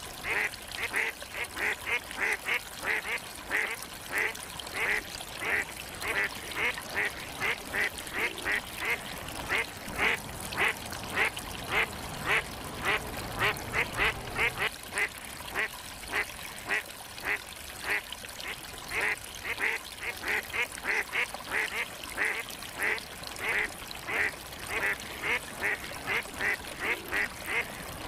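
Ducks quacking: short calls coming without a break, a few each second.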